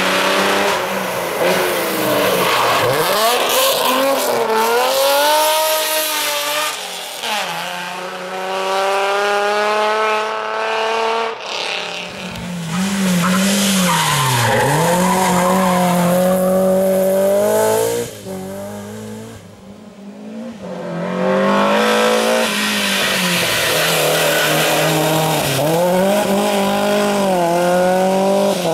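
BMW M3 rally car engine driven hard, its pitch climbing and dropping repeatedly through gear changes and lifts. About 18 seconds in, the sound falls away for a couple of seconds, then comes back at full revs.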